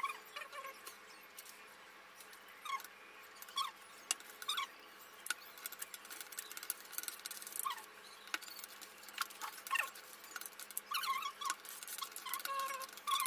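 Kitchen knife chopping an onion on a plastic cutting board: irregular light taps. Brief high squeaks or chirps come through now and then, several together near the end.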